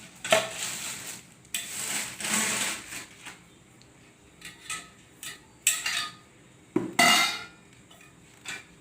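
Metal tubes of a photo backdrop stand clinking and scraping as its sections are handled and fitted together: a run of rasps and clanks, the loudest a ringing clank about seven seconds in.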